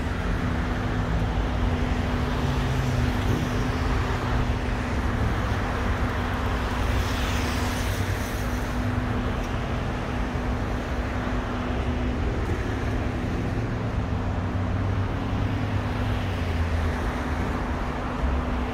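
City street ambience: steady road-traffic noise with a low rumble and a constant low hum underneath, and a brief swell of hiss around the middle.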